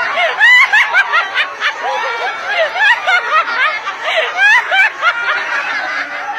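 Several people laughing hard in quick, high-pitched, overlapping bursts.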